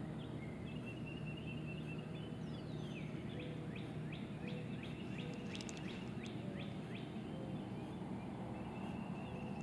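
Songbirds singing: a short trill, then a falling whistle and a run of quick down-slurred notes, two to three a second, then another trill near the end. A steady low rumble of outdoor background lies under them.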